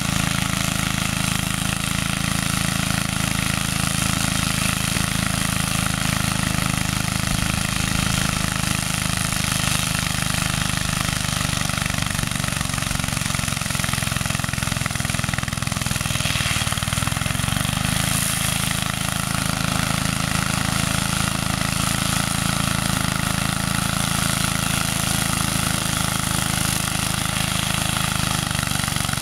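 KAAZ LZ600 walk-behind weed mower's engine running steadily as it cuts through tall weeds. Its pitch sags briefly about halfway through, then recovers.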